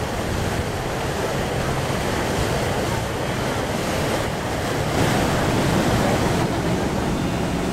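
Wind buffeting the microphone over the steady rush of water along a moving boat's hull.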